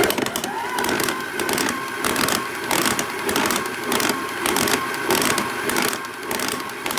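Electric stand mixer running, its flat beater working stiff biscuit dough in a steel bowl under a plastic pouring shield: a steady motor whine with a rapid churning of the dough and many small knocks.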